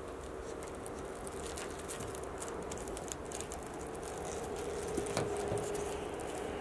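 Low, steady outdoor rumble, like wind on the microphone, with faint scattered ticks and rustles from a wicker basket as a cat shifts in it; a faint steady hum comes in about two-thirds of the way through.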